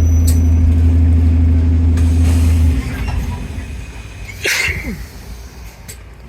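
Bus engine running with a steady low drone that cuts out abruptly a little under three seconds in. About a second and a half later there is a short burst of higher-pitched noise with a falling tone.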